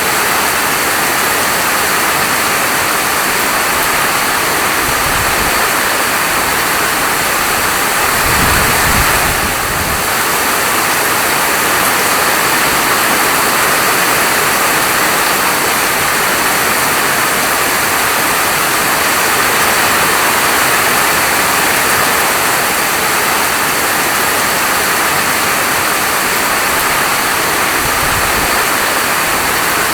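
Steady, heavy rain falling, a dense even hiss, with a brief low rumble about eight seconds in.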